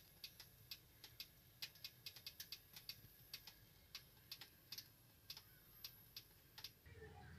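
Faint, irregular ticking and clicking, a few clicks a second, over a thin, steady, high-pitched whine that stops near the end.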